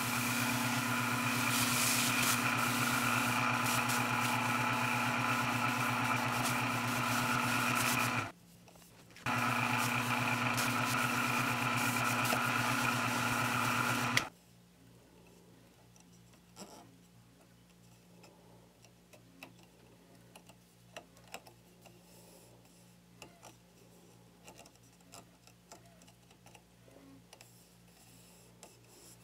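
Mini lathe running with a wooden handle spinning against a paper towel as a finish is rubbed on: a steady whir with a high, even whine, with a gap of about a second some eight seconds in. It stops about fourteen seconds in, leaving a faint hum and a few light clicks and taps as the handle is handled.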